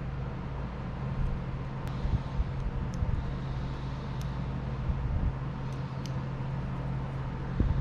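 Steady low background hum, with a few faint light clicks from small parts being handled as a wire terminal is fitted into a plastic wiring-harness connector.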